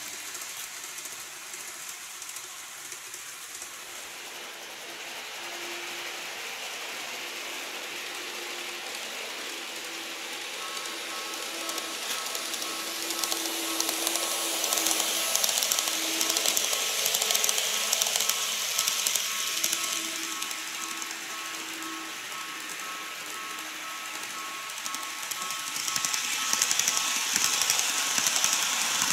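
Model trains running on the track: a steady motor whine and hum with the wheels' rattle, growing louder twice as the 813 series model passes close by and then the 787 series model comes past.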